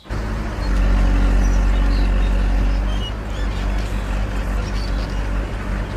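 Heavy quarry machinery engine running steadily with a deep, low hum, starting suddenly.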